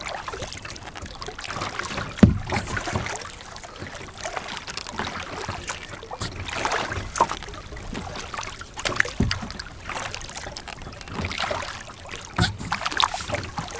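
Double-bladed kayak paddle strokes: the blades dipping into the water and splashing in an uneven rhythm, with water dripping off them and a few louder dull thumps.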